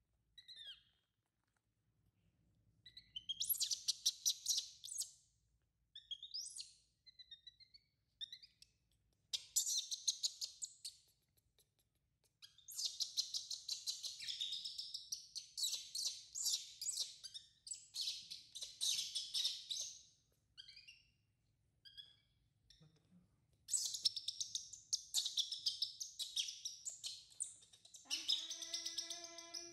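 Newborn baby macaque calling: bouts of rapid, high-pitched squeaky chirps, with short pauses between bouts.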